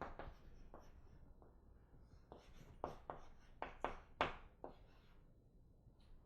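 Handwriting: a run of short, scratchy pen strokes in quick succession, bunched mostly between about two and five seconds in.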